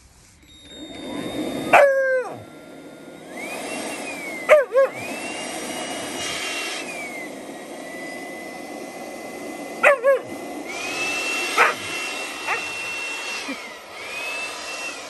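Battery-powered handheld leaf blower whirring, its motor whine spinning up, holding and dying away several times as it is switched on and off in spurts. An Alaskan malamute puppy lets out several sharp barks and yips over it, the loudest sounds.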